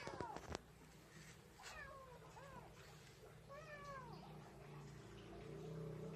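Kittens meowing about four times in short calls that rise and fall in pitch, with a few faint clicks near the start.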